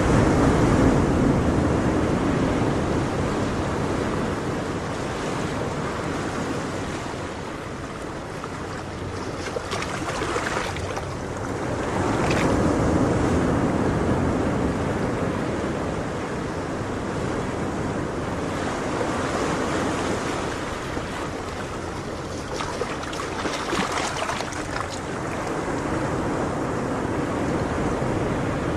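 Ocean surf: waves washing in, the rush swelling and fading every several seconds.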